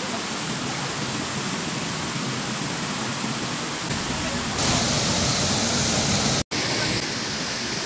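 Steady rush of a waterfall. It gets louder and brighter a little past halfway, then cuts out for a split second and comes straight back.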